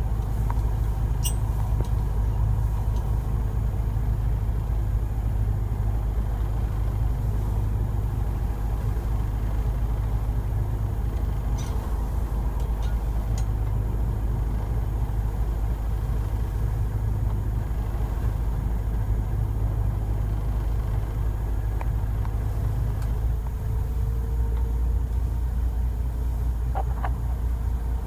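Fishing boat's engine running with a steady low drone, heard from inside the wheelhouse.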